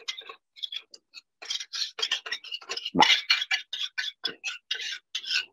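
A kitchen utensil stirring briskly in a large mixing bowl, clicking and scraping against the bowl about five times a second, getting steadier about a second and a half in. This is meringue being mixed into pastry cream until no lumps remain.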